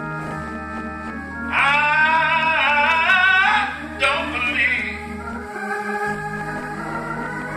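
A man singing a gospel song with strong vibrato over sustained organ chords. The voice comes in about a second and a half in, holds a long phrase with a short one after it, then drops out so that only the held organ chords remain near the end.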